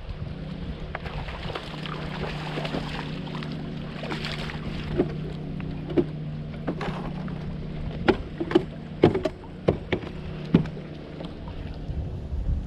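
Kayak under way on a lake: a steady low hum with water washing along the hull. A handful of short sharp knocks and clicks come in the second half.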